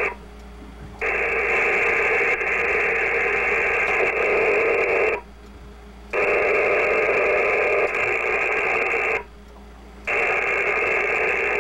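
Icom M-802 marine HF SSB radio's speaker giving a steady hiss of static with no signal. The static cuts out for about a second three times as the radio is switched down to lower-frequency channels. On the lowest channel the noise is, the owner thinks, probably local land-based interference rather than atmospheric noise.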